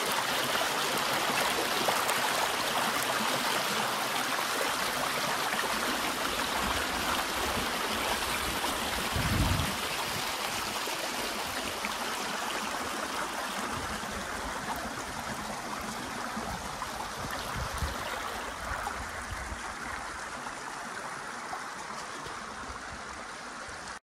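Shallow stream running fast over flat rock slabs: a steady rush of water that slowly grows quieter toward the end. A brief low thump about nine seconds in.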